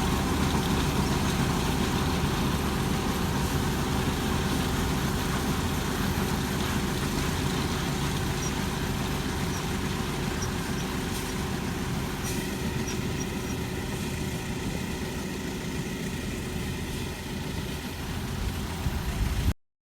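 Farm machine engine running steadily, slowly getting quieter, then cutting off suddenly near the end.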